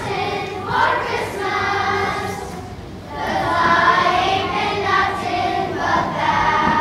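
Children's choir singing, with a short pause between phrases about three seconds in.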